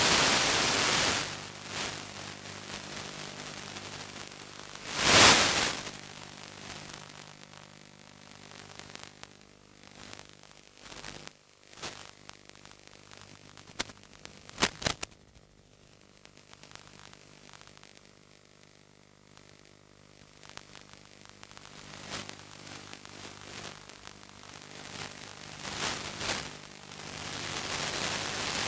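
Static hiss from an analog 5.8 GHz FPV video link's audio channel, over a steady low electrical hum. The hiss swells into loud bursts of white noise at the start, about five seconds in, around fifteen seconds, and again near the end, as the radio signal weakens.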